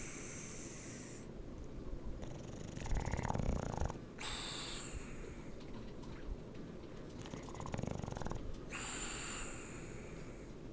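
Sleeping bulldog snoring in a slow breathing cycle: two low, rough snores about three and seven and a half seconds in, with high, hissy, wheezing breaths between them.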